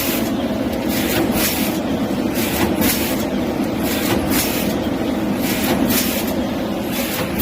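Shrink-wrap packaging machine running: a steady motor and blower hum with short hissing bursts about once a second.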